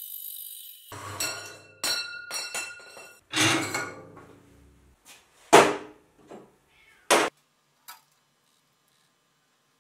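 Metal tube and band saw parts being handled: an irregular series of knocks and clanks with metallic ringing, the loudest just past halfway and another sharp one near seven seconds, then a small tap.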